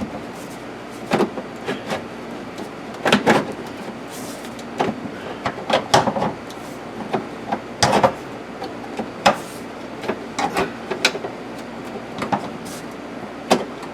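Heater ductwork being handled and fitted under a car's dash: irregular knocks, clicks and rubbing as the pieces are pushed and twisted into place.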